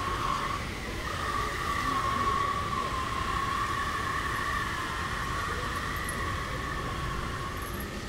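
Airport terminal ambience: a steady low rumble of the hall under a sustained, slightly wavering whine that fades out near the end.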